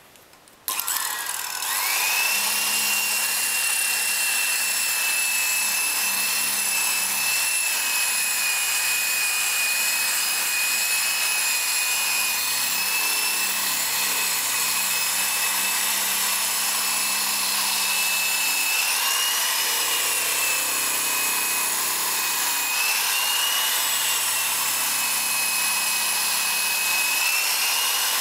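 Electric drill spinning a buffing pad, switched on about a second in: its whine climbs quickly, then holds a steady high pitch that wavers now and then as the pad is pressed and moved over a lacquered wood dashboard panel to polish it.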